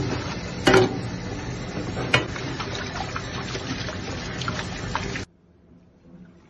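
Kitchen tap running and splashing into a stainless-steel pan while hands swish cooked greens around in the water, with a couple of sharp clanks against the steel. The sound cuts off suddenly about five seconds in, leaving only a faint background.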